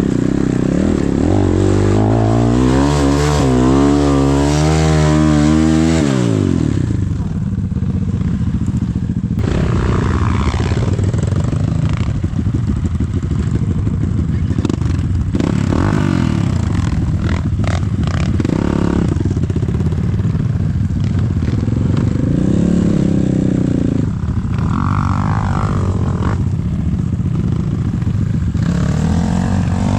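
Enduro dirt bike engine ridden hard over rough ground, its pitch rising and falling quickly with the throttle, with some clatter and knocks from the bike.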